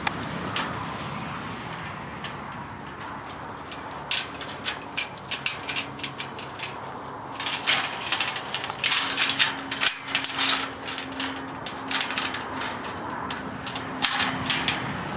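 Chain and latch of a steel tube farm gate rattling and clinking as it is worked by hand: a run of irregular sharp metallic clicks, thickest in the second half.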